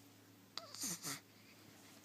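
A four-day-old newborn's hiccup: a sharp little catch about half a second in, followed by a brief breathy sound with a small falling squeak.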